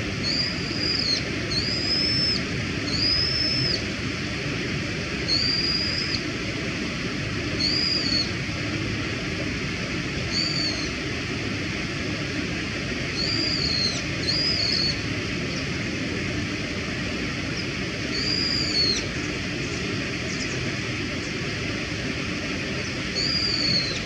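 Brown-eared bulbul calling: short, high notes that rise and fall, each about half a second, about ten of them at irregular intervals over a steady background hiss.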